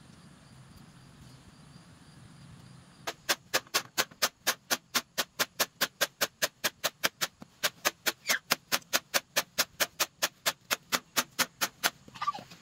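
A rapid, even run of sharp taps, about four or five a second, starting about three seconds in, pausing briefly midway and stopping near the end.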